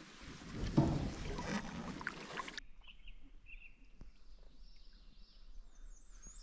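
Rushing noise of paddling and wind on the microphone from a canoe. It cuts off abruptly about two and a half seconds in to a quiet background with bird chirps, then a repeated high bird song near the end.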